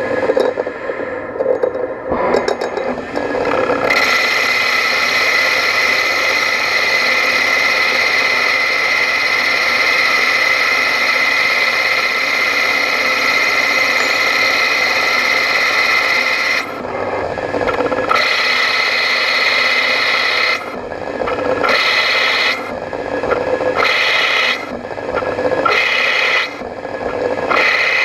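Prototrak CNC lathe turning a brass rod, the tool scraping as it cuts with a steady high ringing tone for about twelve seconds. After that come a series of shorter cuts, each a second or two long, with brief pauses between them.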